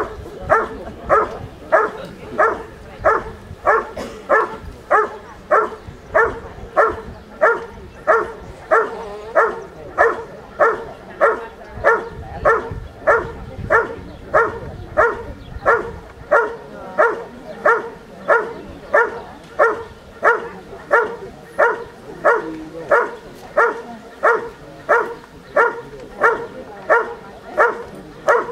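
Doberman barking steadily at a helper hidden in a blind, about two loud barks a second with no break: the hold-and-bark of IPO protection work, where the dog holds the found helper in place by barking.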